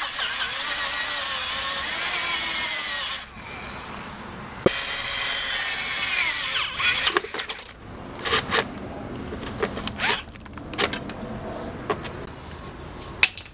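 Power drill boring a 5/8-inch hole through black plastic with a spade bit, in two runs of about three seconds each with a short pause between. After that come scattered sharp clicks and knocks.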